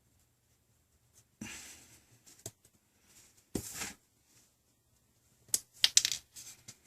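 Small handling sounds while tri-wing screws are taken out of a tablet's plastic housing with a screwdriver: two short scrapes with a click between them, then a quick run of sharp clicks near the end.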